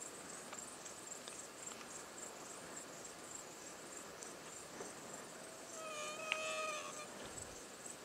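High-pitched insects chirring steadily in the mountain grass at dusk. About six seconds in comes one short pitched call or squeal lasting about a second, with a click in the middle.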